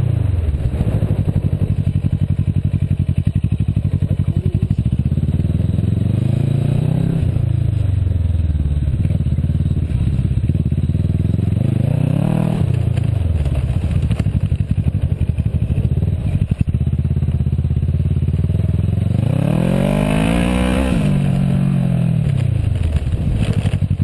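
Kawasaki Versys motorcycle engine heard from on the bike, running at low speed with the revs rising and falling. It picks up three times, about 7, 12 and 21 seconds in, and eases off between.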